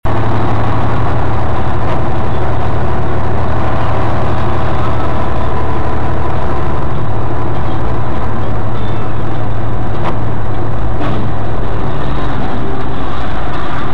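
Steady engine and tyre noise of a car driving on a wet, snowy road, picked up inside the cabin by a dashcam microphone: a constant low hum under a rushing road noise, with a few faint clicks.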